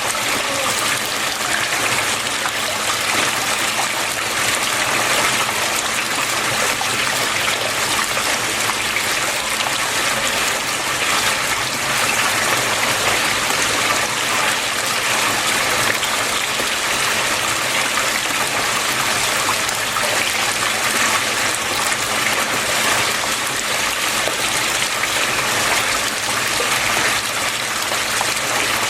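Water flowing and splashing steadily, as from a stream or a small fall into a fish pond.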